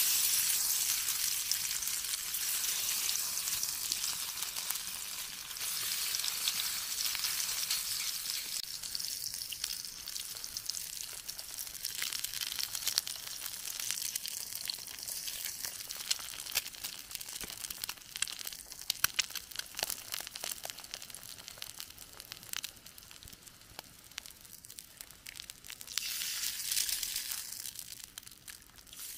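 Food sizzling in a hot pan, with scattered pops and spitting. It is loudest at first and slowly dies down, then flares up again briefly near the end.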